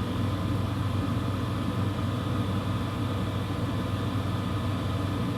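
Steady low machine hum with a constant hiss, like a fan or ventilation unit running; it neither changes nor stops.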